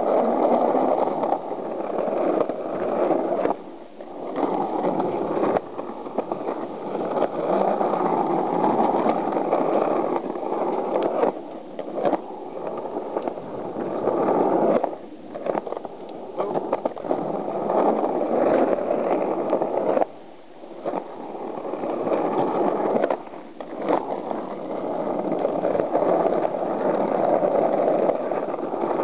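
Skateboard wheels rolling over rough concrete, a continuous gritty rumble broken by a few brief dips and sharp knocks.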